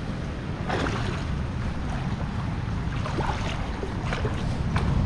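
Wind buffeting the microphone as a steady low rumble, with the occasional splash of feet wading through shallow water, about five in all.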